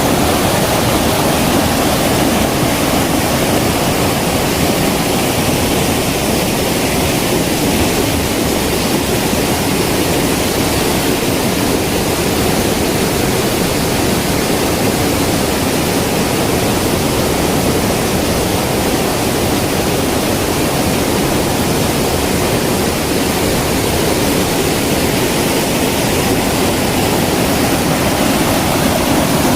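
Stream water running in a steady rush.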